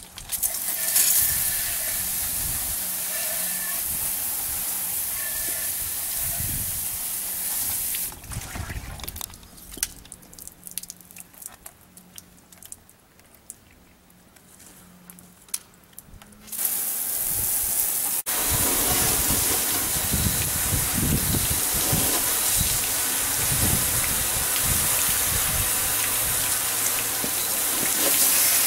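Steady hiss of water jets from a PVC-pipe wash wand fed by a garden hose, spraying against a vehicle's underside and roof. The spray sound drops away for several seconds around the middle, then comes back slightly louder.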